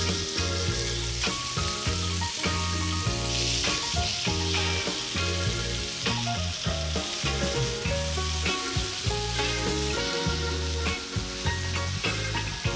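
Cubes of pork tenderloin sizzling steadily as they fry in hot vegetable oil in a frying pan, stirred with a wooden spatula near the end. Background music plays underneath.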